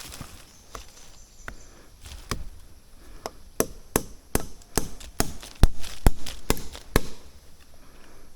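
Repeated chopping strikes of a blade into wood: a few scattered blows, then a steady run of about two to three strikes a second, loudest just past the middle, then stopping about a second before the end.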